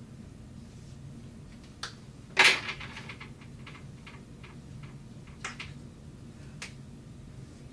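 Dry-erase marker tapping and stroking on a whiteboard: a sharp tap about two and a half seconds in, then a quick run of short strokes, and a couple of single taps later on.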